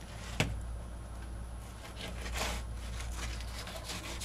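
Fillet knife cutting a croaker: soft scraping and slicing strokes as the blade works through skin, flesh and bone, with a sharp tick about half a second in, over a steady low hum.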